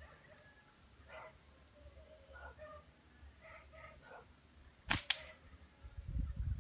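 Faint animal calls, several short ones, then two sharp cracks in quick succession about five seconds in.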